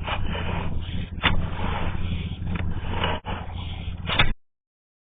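A sewer inspection camera's push cable being pulled back through a drain pipe over a steady low mechanical hum, with scraping and a couple of sharp knocks. The sound cuts off suddenly about four seconds in.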